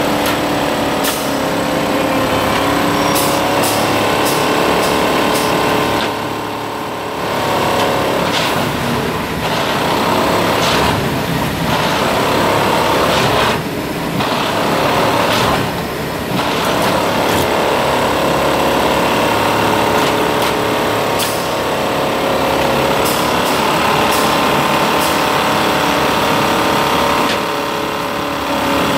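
Plasser & Theurer track maintenance machine working on the track: its diesel engine runs steadily under a stream of sharp metallic clicks and clanks. The sound drops briefly three times.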